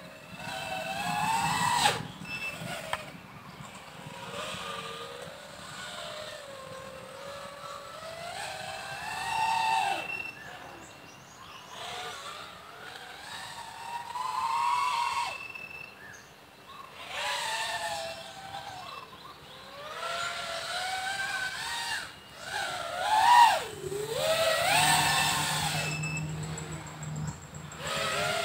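A 5-inch FPV freestyle quadcopter's brushless motors and propellers whining in repeated swells. The pitch rises and falls with the throttle every few seconds, and the loudest, sharpest swell comes late on.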